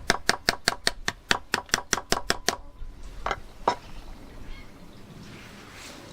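Light, quick hammer taps on a pin punch, driving out the small retaining pin of a Land Rover Discovery 2 door lock spindle. About a dozen sharp metallic taps come evenly at about six a second, then two more after a short pause.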